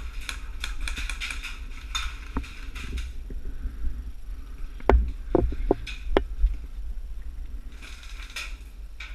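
A run of sharp clicks and knocks over a steady low rumble: light, scattered clicks at first, then five or six loud, sharp knocks about five seconds in.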